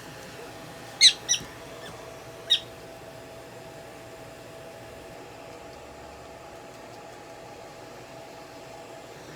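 Prairie dog giving three short, high-pitched squeaks, two close together about a second in and a third a second later, over a steady faint hum.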